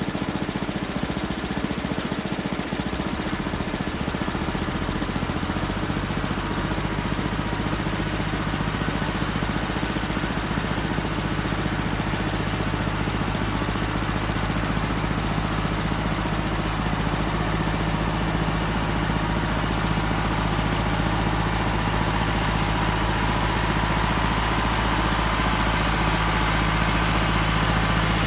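An engine idling, its pitch settling to an even, steady run about six seconds in.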